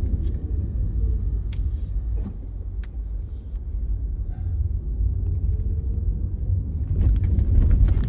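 Steady low rumble of a car's engine and tyres heard from inside the cabin while driving. The engine note dips over the first couple of seconds and rises again later as the car slows and pulls away.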